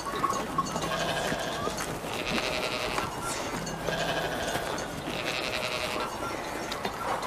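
Livestock bleating, about four drawn-out bleats roughly a second and a half apart, over a steady background.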